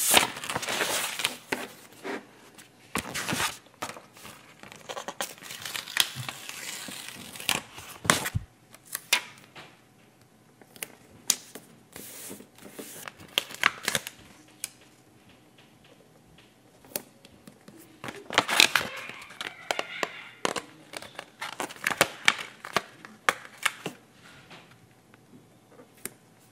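Paper stickers being peeled off their glossy backing sheets and pressed onto a sticker book page: irregular crinkling and peeling rustles with light taps. The handling is busiest at the start and again past the middle.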